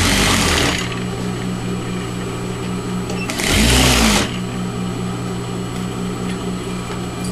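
Sewing machine stitching a seam through fabric, batting and lining, running at a steady beat of about four pulses a second. There are two louder rushing bursts, one at the very start and one about three and a half seconds in.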